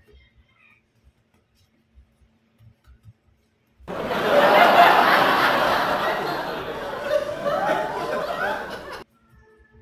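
A crowd laughing, cutting in abruptly about four seconds in and cutting off just as abruptly about five seconds later.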